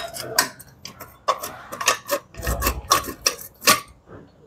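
A run of irregular sharp clicks and clacks from handled hard parts, with a couple of dull thumps about two and a half seconds in. There is no motor running.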